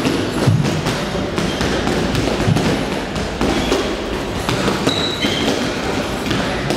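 Boxing gloves striking a heavy punching bag: a run of punches landing as thuds at uneven spacing.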